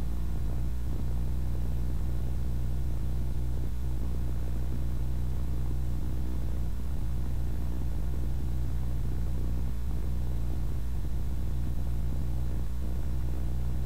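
A steady, unchanging low hum with evenly spaced overtones.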